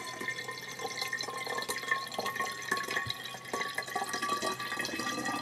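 Water pouring from a plastic bottle into a thick-walled aluminium soda siphon, with a faint tone that rises slightly as the siphon fills.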